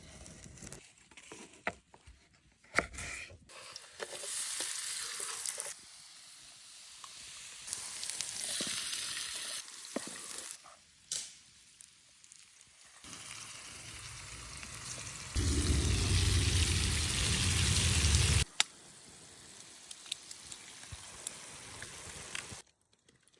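Food sizzling and frying in a pan, in several separate stretches that start and stop abruptly, with a louder stretch a little past the middle and a few short clicks between.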